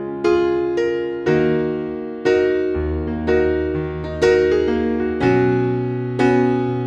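Background keyboard music in an electric-piano sound: slow notes and chords struck about once a second, each ringing and fading before the next.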